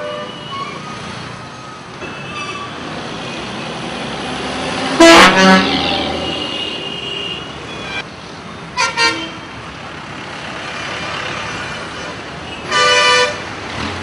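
Vehicle air horns blaring over steady road traffic. The loudest is a very loud blast about five seconds in, followed by two short toots near nine seconds and another loud blast near thirteen seconds, with fainter horns in the distance.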